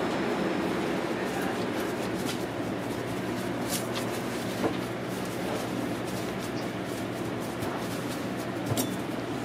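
Steady mechanical hum of kitchen machinery, with a few light clicks and taps from hands working at the counter, twice close together near the end.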